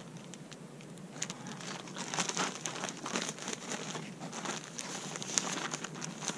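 Clear plastic bag crinkling and rustling in rapid, irregular crackles as it is shaken by hand to coat fish pieces in breading.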